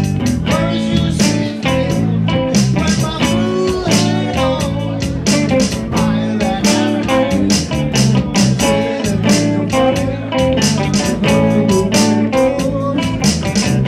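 Live rock band playing: electric guitar and bass guitar through small amplifiers over a drum kit keeping a steady beat.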